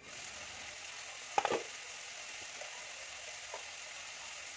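Mixed vegetables (cauliflower, peas, carrots, beans) frying in ghee in a kadai. The steady sizzle starts as the lid comes off. There is a single short clink about one and a half seconds in.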